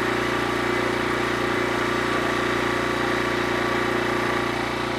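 Norwood HD36v2 portable sawmill's engine running at a steady speed.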